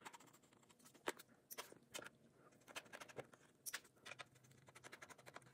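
Near silence with faint, irregular small clicks and scrapes of a precision T5 Torx screwdriver turning tiny screws out of a laptop's bottom panel.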